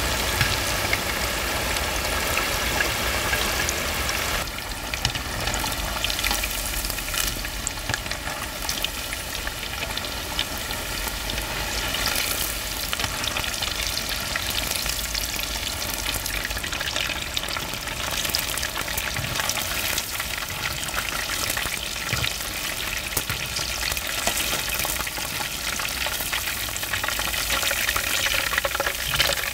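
Battered perilla-leaf chicken pieces deep-frying in hot oil in a cast-iron cauldron (gamasot): a steady crackling sizzle.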